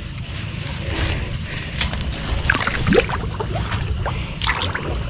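Footsteps wading and squelching through a shallow muddy ditch, with scattered splashes and sloshes. Insects keep up a steady high trill behind.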